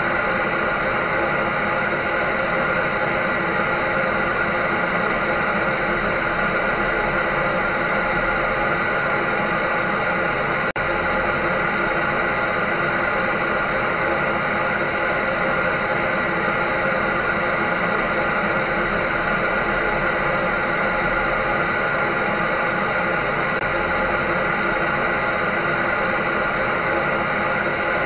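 Clothes dryer running: a steady whirring machine noise with a hum and a low rumble that swells and fades. There is a tiny break about eleven seconds in.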